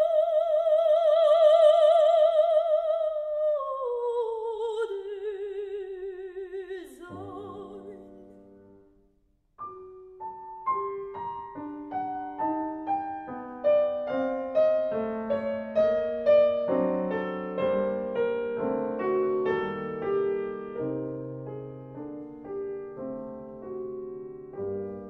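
A soprano voice with wide vibrato holds a high note, then descends through a long closing phrase. About seven seconds in, the voice ends on piano chords. After a brief pause, a Steinway grand piano plays the closing bars alone, in detached notes and chords, fading out near the end.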